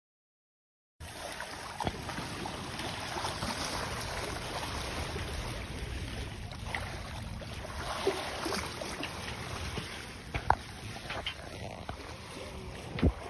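Water rushing and splashing along the hull of a Catalina 40 sailboat under way, with wind on the microphone. It starts about a second in and holds steady, with a few sharp knocks, the loudest near the end.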